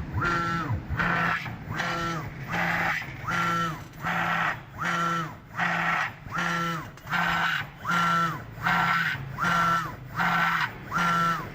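Sanyo Denki 65ZBM011KXS2 servo motor, under a Copley Xenus driver, running repeated short back-and-forth moves at up to about 10,000 rpm. Its whine rises, holds and falls with each move, about every three-quarters of a second, over a steady hum. The motor is vibrating and noisy.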